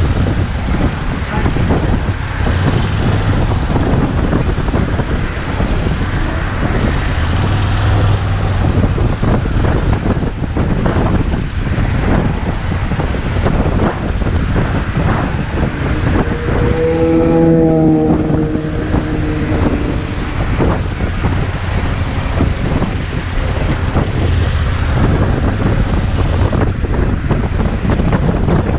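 Wind rushing over the microphone and road noise from a moving motorcycle, with the engine running low underneath. Past the middle, a wavering pitched tone rises over the noise for a few seconds.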